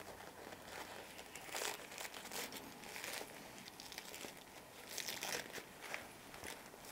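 Paper tea bag being pulled open by hand, its thin filter paper giving faint, intermittent crinkling and tearing rustles.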